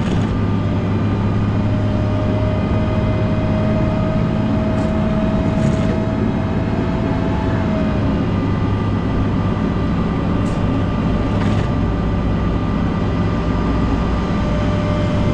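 Volvo L90H wheel loader's diesel engine running steadily under load, with a steady hum and a thin whine that comes in about two seconds in and drops away around eight seconds in.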